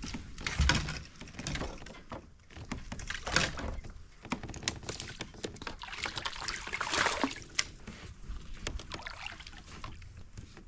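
Water splashing and sloshing beside a kayak as a hooked fish is played and netted, in irregular surges, with scattered clicks and knocks.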